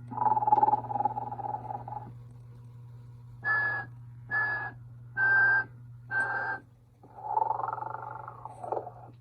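Telco 1992 animated electric Sleeping Santa snoring and whistling: a long snore, then four short whistle toots each about half a second long, then another snore. A steady low hum runs underneath.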